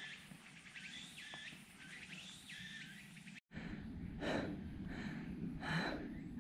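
A bird calling over outdoor ambience, repeating a short call of quick gliding notes about once a second. It cuts off abruptly about halfway through. Louder outdoor noise follows, with three broad swishes.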